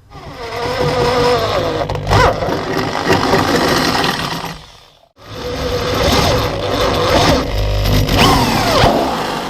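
Power drill cutting a 32 mm hole through the firewall, the bit squealing and chattering as it bites; it stops just before halfway and starts cutting again straight away.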